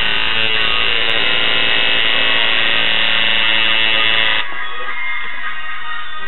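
Electric tattoo machine buzzing steadily as its needle works into the skin, cutting off about four seconds in. Background rock music plays underneath.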